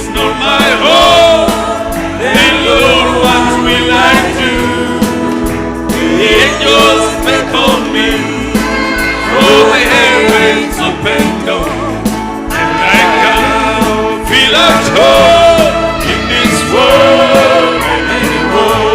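Gospel song: singing over instrumental accompaniment.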